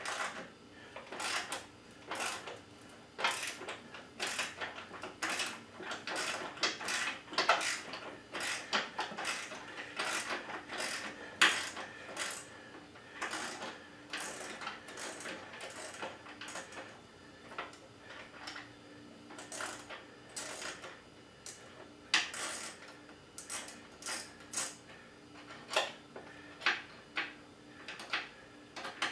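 Hand tools working on metal bolts and hardware: a long run of irregular sharp metallic clicks and clinks, sometimes singly, sometimes in quick clusters.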